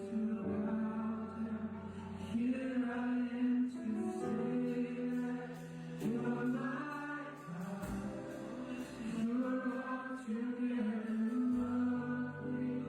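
Slow sung worship music: voices holding long notes in phrases, with instrumental accompaniment.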